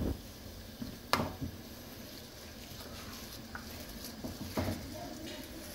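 Rice grains swept off a steel plate into a pot of boiling water, the plate knocking against the aluminium pot's rim a few times, with the water bubbling throughout.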